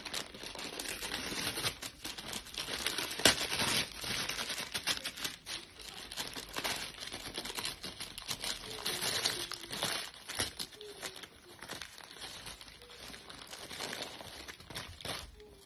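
Miniature dachshund ripping and chewing a crinkly wrapper: a continuous run of crinkling and tearing with sharp crackles, easing into quieter crinkles near the end.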